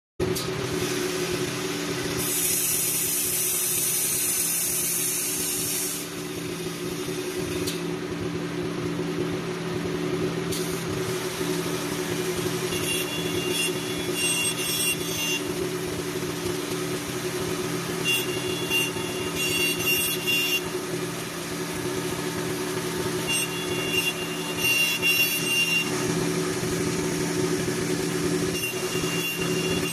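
CNC wood lathe running with a steady motor hum. A loud high hiss comes in for a few seconds near the start, then shorter bursts of hiss with a thin whine recur about every five seconds as the machine cuts.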